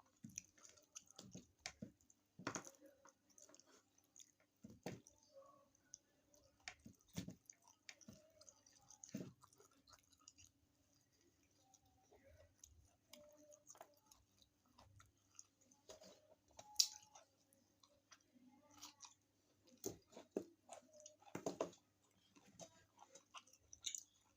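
Close-miked chewing of a person eating, with irregular wet mouth smacks and clicks. A faint steady hum runs underneath.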